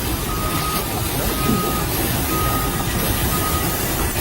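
Construction vehicle's back-up alarm beeping once a second, four half-second beeps that stop about three and a half seconds in, over steady low machinery noise.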